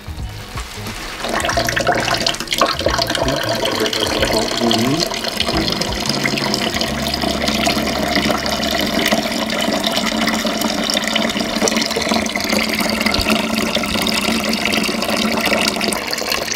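Fresh-pressed apple juice pouring steadily in a stream from the spout of a fruit press into a plastic bucket, starting about a second in.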